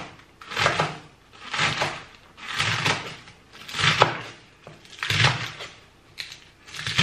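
Knife slicing through a head of iceberg lettuce on a wooden cutting board, one stroke about every second.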